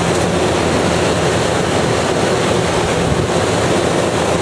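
Steady rush of airflow over a glider's canopy and fuselage, heard from inside the cockpit on aerotow, with a faint low hum underneath.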